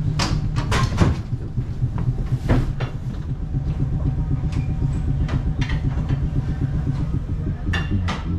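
ATM Class 1500 tram running on its rails: a steady low rumble with scattered sharp clicks and knocks.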